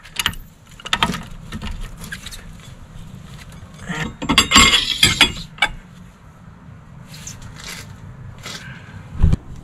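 Metal clinks and clicks of a socket wrench working a rusted front brake caliper bolt that has just broken loose, with a quick run of clicks around the middle and a single knock near the end.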